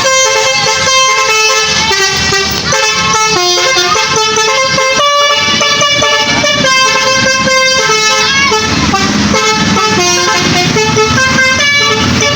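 Tour bus telolet basuri horn playing a melody: a loud, unbroken run of musical horn notes that step from pitch to pitch.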